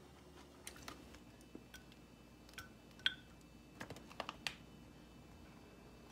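Blueberries dropped into a glass mug: a scattered series of light taps and clinks, some with a brief glassy ring, bunched in the first four and a half seconds.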